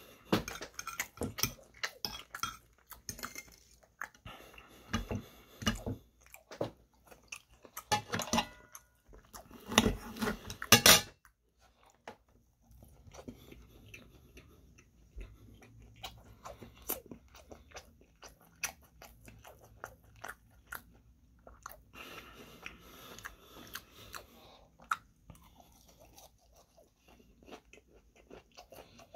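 A person chewing crunchy breaded fried chicken katsu, with sharp crackling crunches. The crunching is loudest and densest through the first eleven seconds or so, then gives way to softer, sparser chewing.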